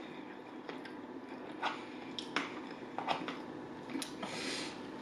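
Chewing and wet mouth sounds of someone eating soft baked ziti, with about four sharp clicks of a fork against the takeout bowl.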